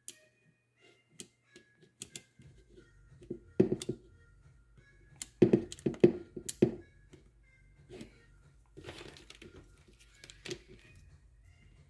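Handling of a Fluke 902 HVAC clamp meter: scattered plastic clicks and knocks as it is picked up and worked. The loudest cluster of knocks comes about halfway through.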